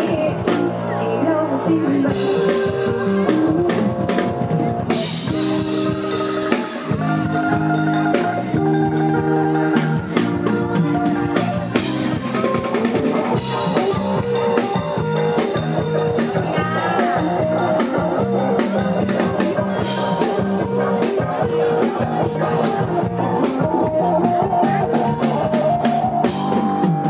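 Loud instrumental music from a live band: a held, stepping melody line over a steady drum-kit beat.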